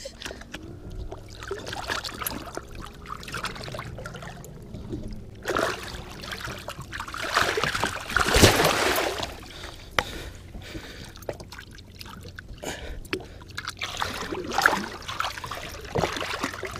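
Lake water splashing and sloshing at the side of the boat as a hooked musky is worked into a landing net. The splashes come in uneven bursts, the loudest about eight seconds in.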